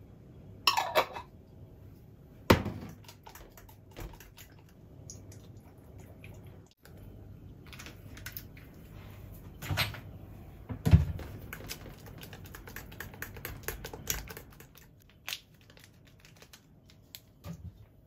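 A metal spoon clinking, tapping and scraping against a glass mixing bowl of egg batter and a plastic bowl of oats and flour, with many light clicks and a few sharp, louder clinks, the loudest about eleven seconds in.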